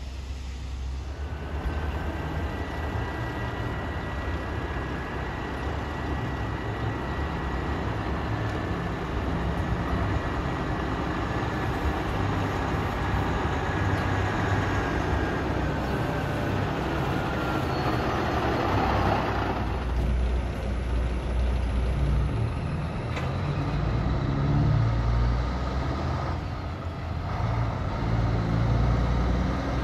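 Loaded log trucks driving past, their diesel engines running with tyre noise. A passing truck swells to a peak about two-thirds of the way through, then another truck's engine grows louder as it approaches. A faint high whine fades out about halfway through.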